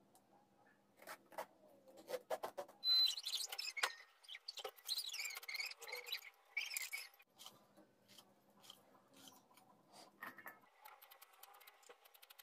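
A hand-held julienne peeler scraping and shredding a bottle gourd into strips: irregular rasping strokes with small clicks, busiest a few seconds in.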